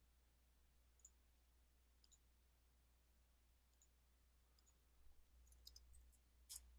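Near silence with a few faint, scattered clicks of computer input, several close together near the end.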